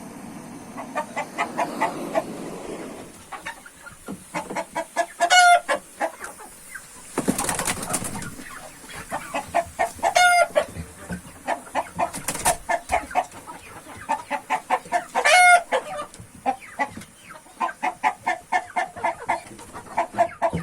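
Agitated hens clucking in rapid runs, with a louder drawn-out call about every five seconds, three times, and a brief rush of noise near the middle. The hens are unsettled by the fan and the iodine smoke bomb burning in the coop.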